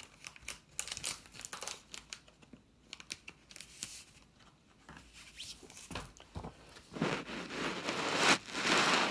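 Plastic comic-book bag crinkling and paper pages rustling as a comic is taken out of its bag and leafed through. Scattered soft crackles at first, then a louder, steadier rustle of the pages over the last two seconds.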